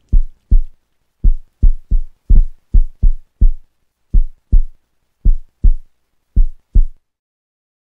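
Background music's deep thumping beat in a heartbeat-like rhythm: low thuds, mostly in pairs about half a second apart. It stops abruptly about seven seconds in.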